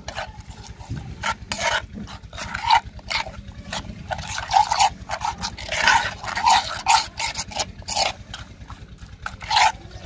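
Metal spoon stirring a thick yogurt-and-spice marinade in a glazed clay bowl, scraping and knocking against the bowl in quick, irregular strokes, over a steady low hum.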